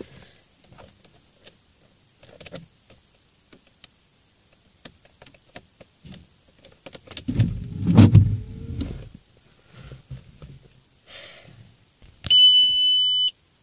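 Inside a Škoda Octavia estate with the ignition on: scattered clicks and light knocks, a low motor whir of about two seconds midway, and a steady dashboard warning beep lasting about a second near the end.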